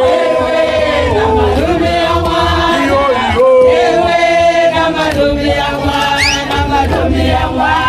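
A group of voices singing a chant-like song, with a steady deep bass underneath. A short high rising glide sounds about six seconds in.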